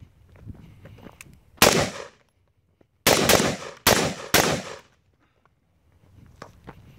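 Gunfire: one loud report about one and a half seconds in, then three more in quick succession from about three seconds in, each with a short echoing tail.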